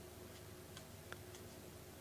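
Faint, scattered light clicks of trading cards being handled and flipped through, over a low steady room hum.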